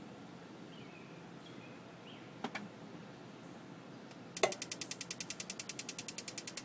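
Gas water heater's electronic spark igniter clicking rapidly, about ten ticks a second, starting with a louder click about four seconds in; a single click comes earlier, about two and a half seconds in. The heater is trying to light and the burner is not catching.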